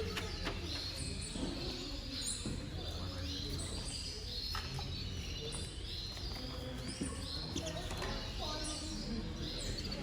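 Gloster canaries chirping and calling, many short chirps overlapping and scattered throughout, over a low steady background rumble.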